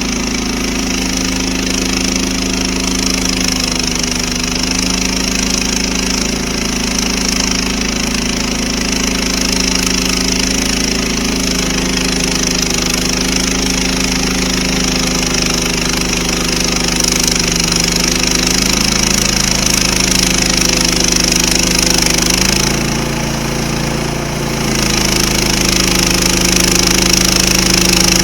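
Gasoline engine of a Frontier OS31 portable bandsaw mill running steadily under load as the band blade cuts through a large red oak log, with a constant high hiss over the engine. The engine pitch shifts a few times, and the hiss drops briefly about three-quarters of the way through.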